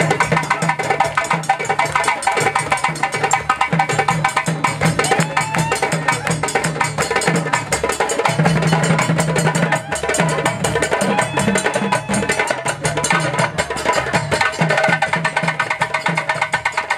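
Live West African drum ensemble playing a fast, dense rhythm on hand drums, with sharp strokes over a repeating low bass-drum pattern.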